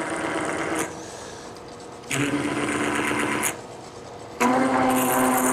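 Crown texturing tool's wheel buzzing against the turning soft maple on a slow-running lathe, in three passes of one to two seconds each, each a steady pitched buzz with a hiss over it.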